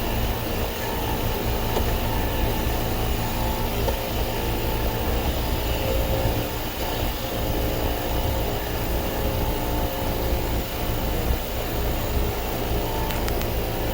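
American Standard inverter compressor running with a rough rattling rumble and a steady hum over it, the noise it makes just before the system shuts down into soft lock; the owner suspects something is physically wrong inside the compressor.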